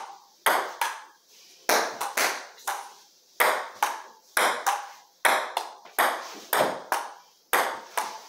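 Celluloid-type table tennis ball clicking off paddles and the table top in a running rally, a sharp hit about twice a second.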